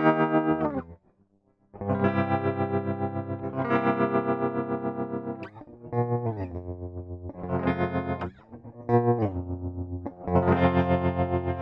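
Electric guitar played through effects pedals with distortion, sustained notes and chords ringing out. A brief break about a second in, and several notes slide downward in pitch.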